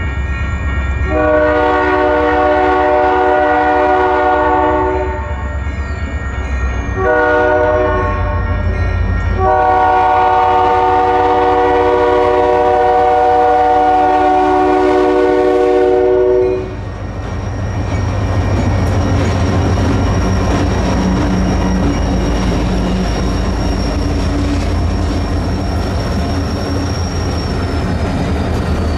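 Diesel freight locomotive's multi-chime air horn sounding a chord in three blasts, the last one held for about seven seconds. After that the locomotive's engine and the rolling train rumble on steadily.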